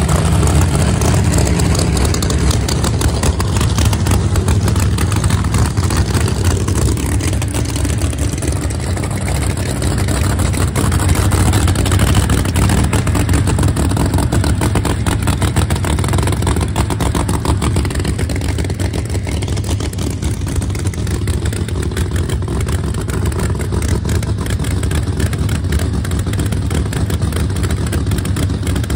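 Drag race car engines running at the starting line, a loud, steady, deep rumble.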